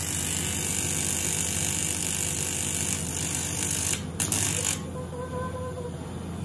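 TIG welding arc buzzing and hissing steadily, flickering about four seconds in and cutting out just before five seconds, when the torch goes off.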